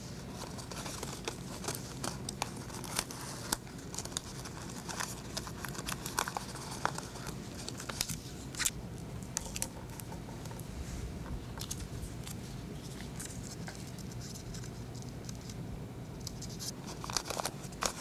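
Paper rustling and crinkling as hands fit cut-out notebook-paper pentagons and hexagons onto a curved paper model, with many small irregular ticks and scrapes over a low steady room hum.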